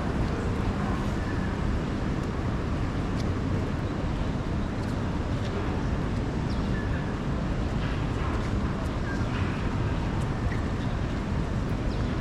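Steady city traffic noise: a continuous rumble of passing vehicles, with a few faint short sounds over it.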